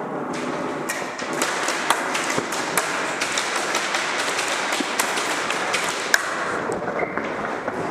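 Close-quarters airsoft firefight: a dense clatter of airsoft gunfire with many sharp ticks, typical of plastic BBs striking plywood walls, starting abruptly and going on without pause.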